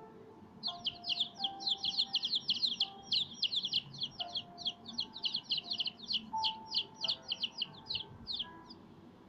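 Baby chicks peeping: a fast run of short, high, falling peeps, several a second, starting about half a second in and stopping shortly before the end.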